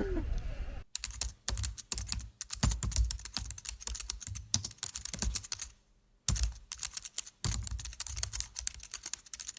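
Dense, irregular clicking and rattling of rifle and shooting gear being handled as the rifle is unloaded and cleared, with short pauses about six and seven seconds in.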